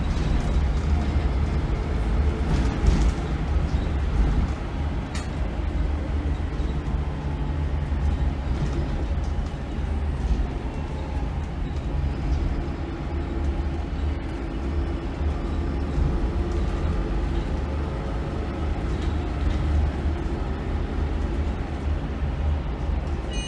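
Volvo B8RLE bus's six-cylinder diesel engine and drivetrain running under way, heard inside the passenger saloon near the rear. A steady low rumble, with the engine note rising and falling as the bus speeds up and slows.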